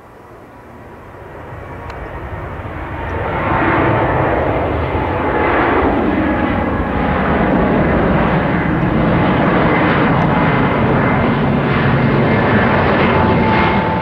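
Twin turbofan engines of a Boeing 787 jet airliner at high thrust as it climbs steeply overhead: a jet roar that swells over the first few seconds, then holds steady with a faint whine in it, and cuts off abruptly at the end.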